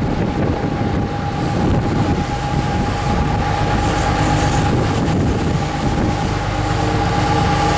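Sport-fishing boat's engines running steadily under way while trolling, a constant rumble with a steady droning tone, mixed with wind and the rush of the wake.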